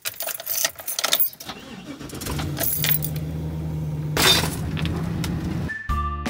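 Keys jangling and clicking as the key goes into the ignition of a Chevrolet van, then the engine starts about two seconds in and idles steadily. There is a brief scuffing burst about four seconds in.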